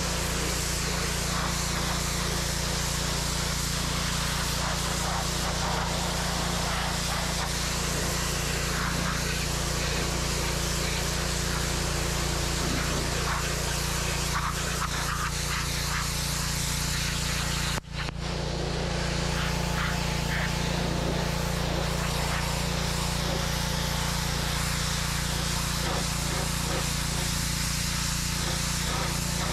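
Simpson gas pressure washer with its Kohler engine running steadily while the high-pressure jet hisses against a car's body panels. The sound cuts out for an instant about two-thirds of the way through.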